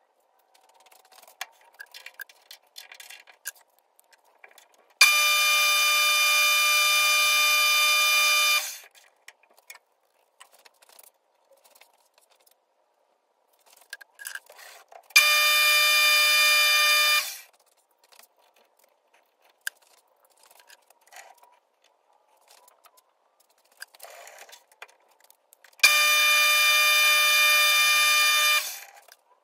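Twist drill feeding into brass stock on a metal lathe, giving a steady high-pitched squeal three times, each starting suddenly and lasting two to four seconds, with faint clicks and scraping between the passes.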